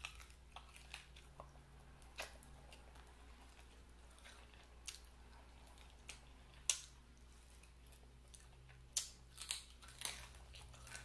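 Close-miked eating: quiet chewing and mouth clicks as meat is pulled off a chicken wing bone, with a handful of sharp smacks, the sharpest about two-thirds of the way through and a few more near the end.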